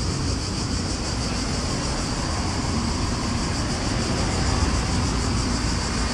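Cicadas buzzing in a steady chorus, a high band with a fast, even pulsing, over a steady low rumble.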